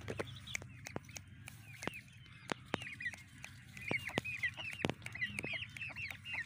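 Young Aseel chicks peeping: short falling chirps that come in quick runs from about two and a half seconds in, with scattered sharp clicks.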